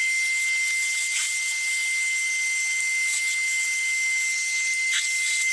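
Shop vacuum hose sucking dirt and debris out of the base of an old cast-iron vise: a steady rush of air with a high, steady whistle from the nozzle.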